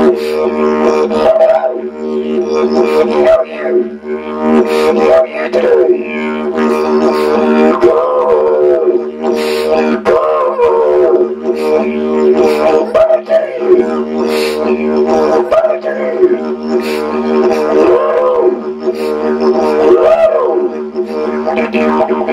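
Didgeridoo played as a continuous drone on one steady low note, with vowel-like sweeps rising and falling every couple of seconds as the player voices words through the instrument.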